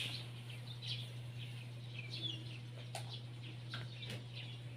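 Small birds chirping on and off in the background, with a couple of light clicks about three and four seconds in, over a steady low hum.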